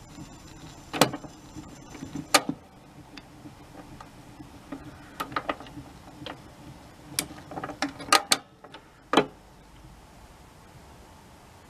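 Automatic tone-arm return of a 1973 RCA Model VZP phonograph at the end of the record: a run of irregular mechanical clicks and clunks as the arm lifts off and swings back to its rest. A faint hum stops about two seconds in, and the last clunk comes about nine seconds in.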